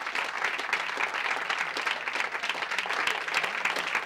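Studio audience applauding: a dense, even patter of many hands clapping.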